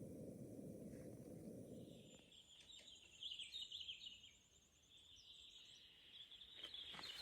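A songbird singing high, quick trilling phrases, after a low rushing noise fades out about two seconds in.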